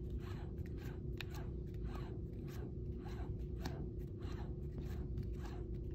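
Steel nut of a Kurt HDL6 vise's screw assembly being spun along its threaded lead screw by hand, a soft scraping rasp repeating a few times a second over a steady low hum.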